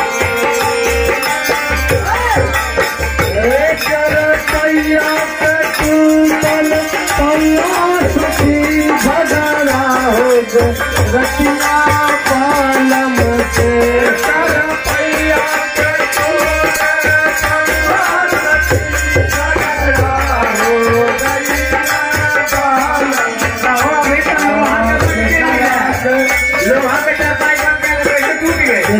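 Bhojpuri Holi folk song sung by men's voices, accompanied by small hand cymbals (jhal) clashing in a steady rhythm and a hand drum beating low thumps.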